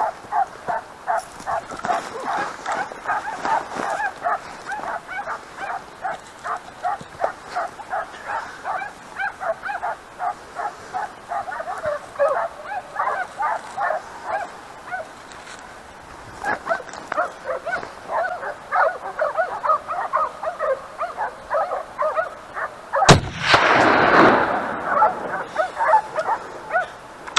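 A pack of hunting dogs barking and baying without a break, two or three barks a second. Near the end comes one loud shot from a .308 bolt-action rifle (Ata Turqua Gen 2), with an echo that rolls on for about a second and a half.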